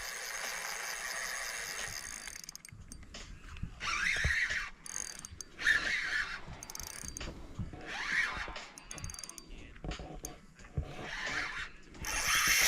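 Fishing reel drag zinging as a hooked barramundi pulls line off. There is one long run for the first couple of seconds, then several shorter bursts, with a few low knocks in between.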